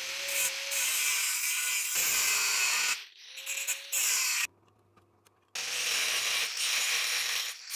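An angle grinder with a thin cutting disc grinds a steel knife blank: a loud, harsh hiss of steel being ground away, with the motor's whine underneath. About halfway through it drops out to near silence for a second, then the grinding resumes.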